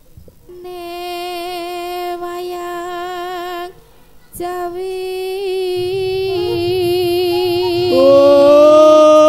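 Javanese sung accompaniment to a warok dance: a singer holds long notes with a wavering vibrato, breaks off briefly near the middle, then comes back in with a louder held note near the end.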